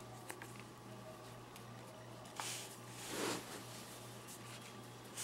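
Faint handling of a paracord bracelet as it is taken off its jig: a light click about two and a half seconds in, then a short rustle of cord, over a low steady hum.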